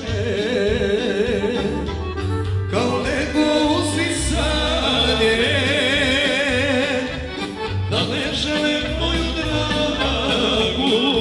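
Serbian folk music playing: a wavering, ornamented melody over a pulsing bass beat, with singing.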